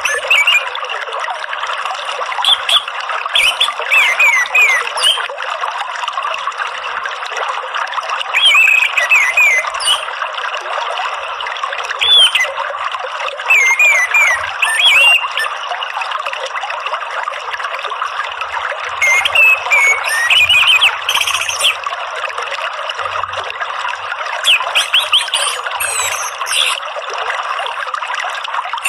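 Steady running water with an orange-headed thrush singing short, quick twittering phrases every few seconds over it. This is a therapy and lure track meant to get a caged thrush singing again.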